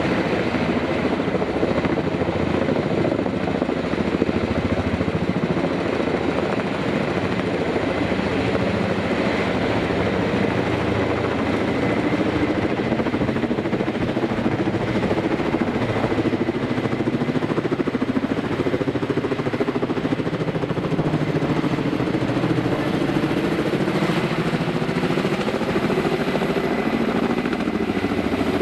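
Kamov Ka-32 coaxial-rotor helicopter flying low overhead: a steady thrum from its two stacked rotors with a faint high whine from its turboshaft engines.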